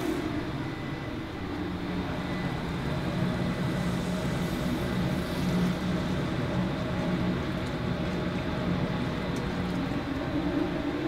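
Commercial kitchen ventilation hood fan running steadily: a low, even hum under rushing air.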